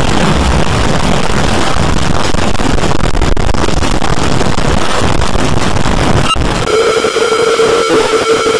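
Loud, harsh distorted noise with no clear pattern. About six seconds in it cuts off sharply and gives way to a steady held tone with a higher tone above it.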